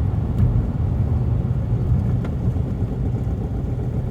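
BMW E60 on the move: a steady low rumble of road and engine noise, with a couple of faint ticks.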